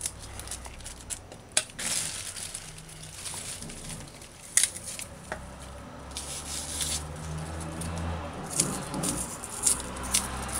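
Small kitchen knife trimming and peeling scallion by hand, with a few sharp clicks of the blade and crinkling of the plastic and paper underneath.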